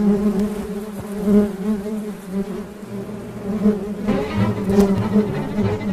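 Many honeybees buzzing around an open hive: a steady, many-toned hum that gets somewhat louder and busier about four seconds in.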